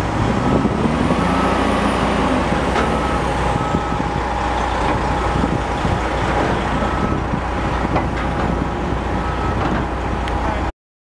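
Heavy military truck diesel engines running steadily, with a reversing alarm sounding short high beeps off and on. The sound cuts off suddenly near the end.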